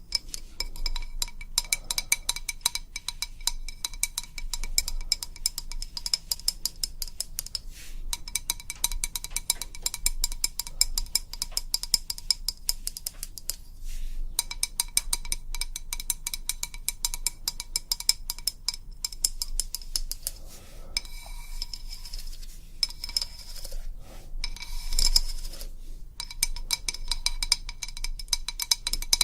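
Rapid ASMR tapping on a hard object that rings at a few steady pitches, in runs of several seconds broken by brief pauses. For a few seconds past the middle the crisp taps give way to a softer, smeared rubbing sound.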